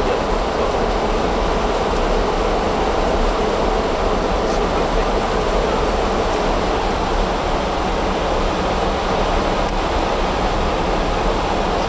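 Steady rushing cabin noise on the flight deck of an Airbus A300-600 in flight: air streaming past the airframe and windscreen.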